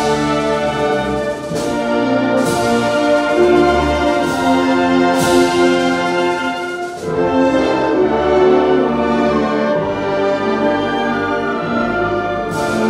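Symphonic wind band playing loud sustained chords with the brass to the fore, punctuated by several sharp crashes. The sound dips briefly about seven seconds in, then the band comes back in full.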